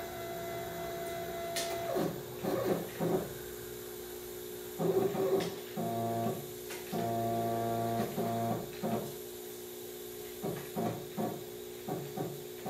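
Stepper motor of a small CNC mill jogging the spindle head down in short starts and stops, each a pitched whine with overtones, with two longer runs about six and seven seconds in, over a steady low hum. The mill is being lowered step by step to touch off on a thin shim and zero the Z axis.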